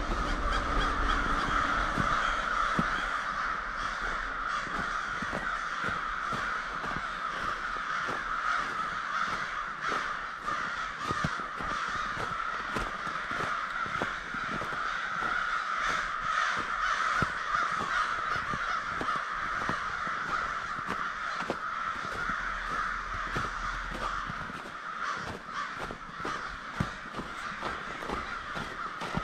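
A large flock of American crows cawing continuously, with many calls overlapping into a dense chorus.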